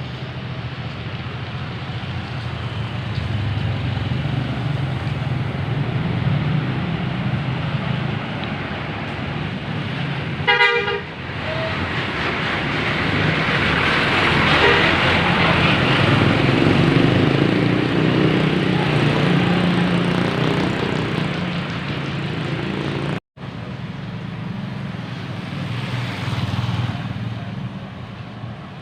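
Bus traffic with engines running steadily. About a third of the way in, a bus horn gives one short toot. A passing vehicle swells louder through the middle.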